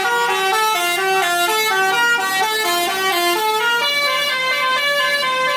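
Bus telolet horn, a multi-tone musical air horn, playing a long snaking tune of quick stepping notes.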